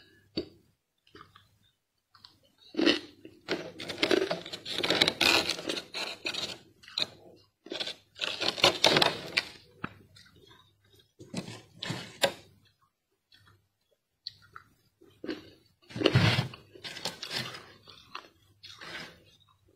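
Freezer frost crunching in irregular bursts: a few seconds of dense crisp crunching with sharp clicks, then short pauses, several times over.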